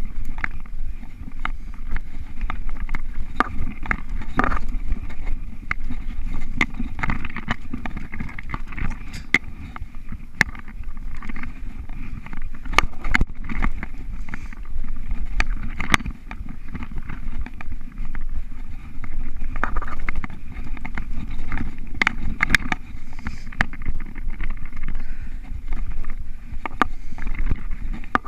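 Mountain bike ridden fast over a dirt singletrack: a steady low rumble from the tyres on the ground and wind on the microphone, with frequent sharp clicks and rattles from the bike as it jolts over the trail.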